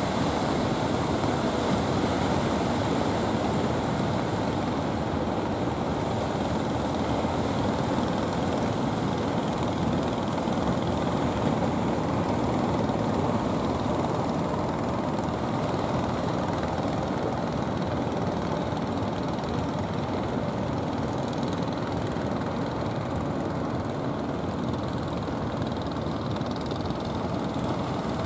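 Steady rumble of wind and surf mixed with the engines of motorised outrigger fishing boats running out through rough sea.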